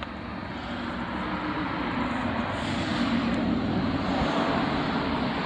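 Serpent Project 4X electric 1/10 touring car running on asphalt on Gravity RC foam tires: a steady rushing hum of motor, drivetrain and tyres that grows louder over the first two seconds, then holds.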